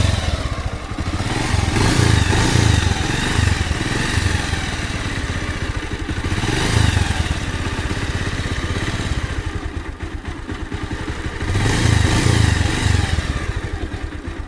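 Motorcycle engine running and being revved three times, its pitch rising and falling with each blip of the throttle. It runs after the timing chain tensioner has been readjusted, to check that the timing chain rattle is gone.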